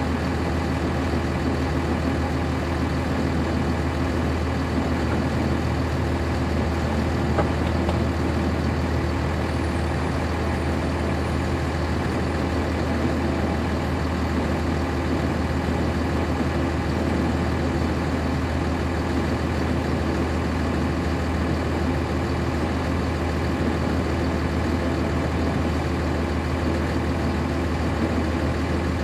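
Cummins ISC inline-six diesel of a 1999 NovaBus RTS transit bus running steadily, heard from inside the passenger cabin, with a deep hum and no revving.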